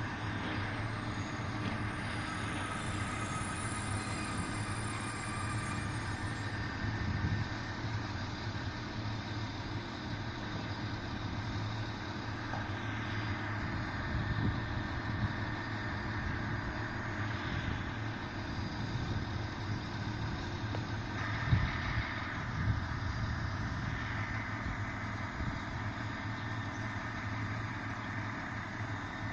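Engine of a yellow SŽDC rail maintenance vehicle idling with a steady low hum. Two short knocks come about three-quarters of the way through.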